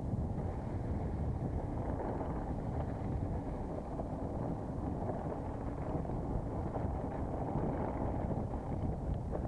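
Steady wind rush on the microphone mixed with the rumble of a mountain bike being ridden, with a few faint clicks near the end.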